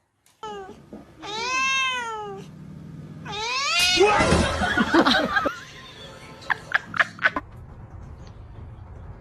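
Two cats in a standoff: one long drawn-out yowl, then a louder rising yowl that breaks into noisy scuffling as they swat at each other. A few short sharp sounds follow, then only a low steady background.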